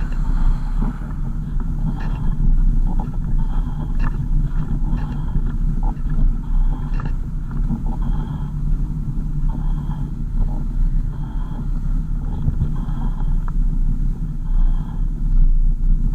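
Car driving: a steady low rumble of engine and road noise, with scattered small knocks and rattles.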